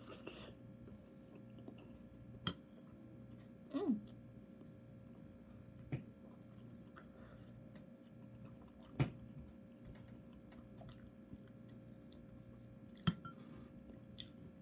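A person chewing a mouthful of dumpling in soup, with soft wet mouth sounds and a few sharp clicks spread through. A brief throat sound comes about four seconds in.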